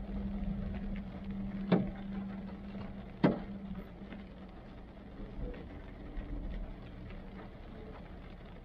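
Rain falling on a car, heard from inside the cabin: a steady hiss of light ticks on the roof and windshield. A low hum fades out about halfway through, and two sharp knocks stand out, about two and three seconds in.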